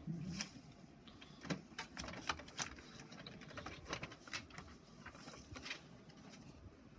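Inkjet all-in-one printer at work, faint irregular clicks and rattles, with sheets of paper being handled at its output tray.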